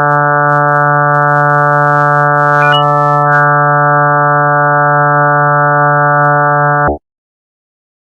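Steady electronic drone of evenly spaced tones, held at one pitch, presented as a sound of Jupiter's moon Europa; it cuts off suddenly about seven seconds in.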